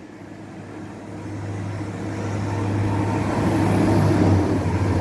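Passenger train, which the spotter identifies as a Class 195 diesel multiple unit, approaching and running under the bridge. Its steady low engine drone and rumble grow louder throughout and are loudest near the end.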